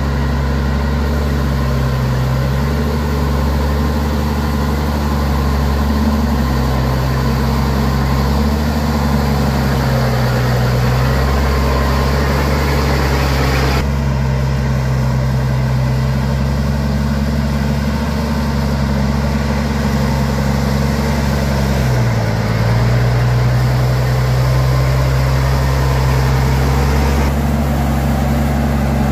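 Heavy truck engine running steadily at low revs. Its pitch sags and recovers briefly a few times, most clearly about two-thirds of the way through.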